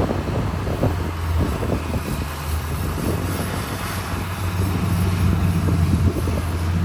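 Heavy diesel earthmoving machinery running with a steady low engine drone.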